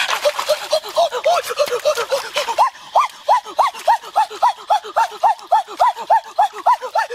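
A fast, regular series of short pitched calls, each rising and falling, about three a second, from an unseen animal. Splashing of hands in shallow stream water is heard under it early on.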